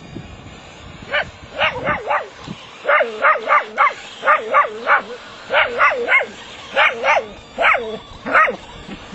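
A dachshund barking in quick, high yips, bunched two to four at a time with short pauses between, while it plays with a toy.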